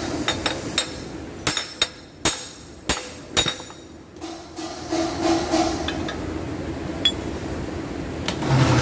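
Hammer blows on a car's wheel hub, about seven sharp metallic clinks in the first few seconds and one more later, driving out an old wheel stud for replacement.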